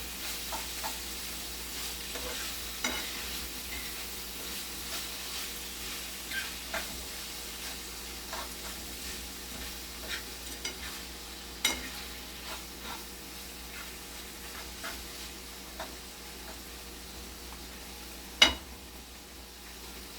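Food sizzling steadily in hot oil in a frying pan, with a utensil stirring and clicking against the pan now and then; one sharp knock near the end is the loudest sound.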